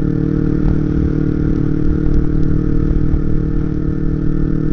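Kawasaki Ninja 250R's parallel-twin engine running at a steady cruise while the bike rides along, with wind rumble on the microphone.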